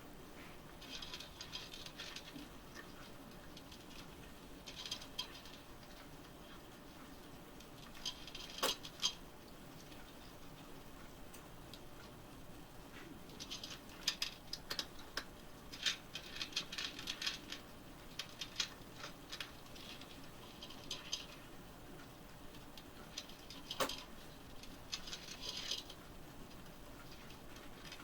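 A cat crunching dry kibble: short bouts of quick, crisp crunching with pauses between them, and two single sharp clicks about 9 and 24 seconds in.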